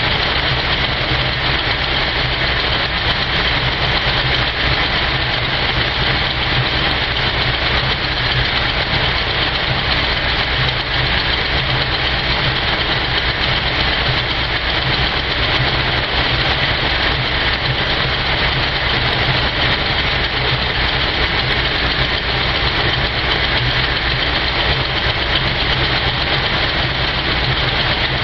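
Old General Motors car engine idling steadily while it warms up after a cold start, running without the choke.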